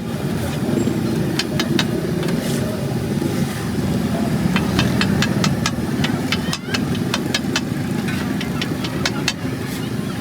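Metal spatula clicking rapidly against a flat iron griddle in quick runs, over a steady low rumble.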